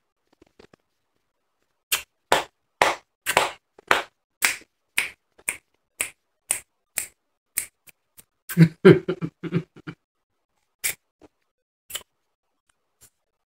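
Crushed snow-type ice being chewed: sharp crunches about twice a second, a denser flurry of crunching with a short low hum about nine seconds in, then only a few scattered crunches.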